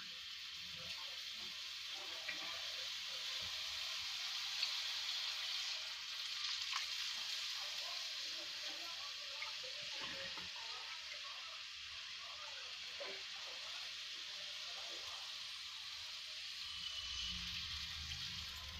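Spiced vermicelli in hot oil sizzling in a kadhai as water is poured in, with a few light clicks from the metal spoon. The sizzle swells over the first few seconds and then settles to a steady hiss.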